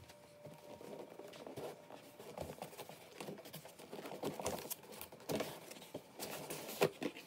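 Hands handling a cardboard parts box: irregular rustling, scraping and knocks of cardboard, with a sharp knock a little before the end.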